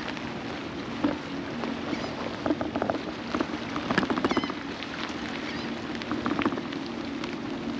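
Rain pattering, with many sharp drop ticks, over a steady low hum. A few faint high squeaks come about four seconds in.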